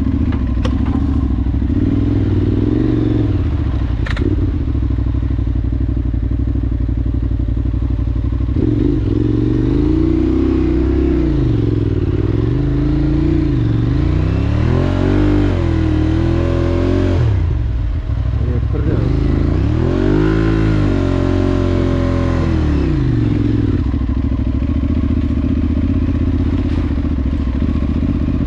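Adventure motorcycle engine running under way. It holds a steady note, then revs rise and fall repeatedly through the middle stretch as the throttle is worked, before settling back to a steady note near the end.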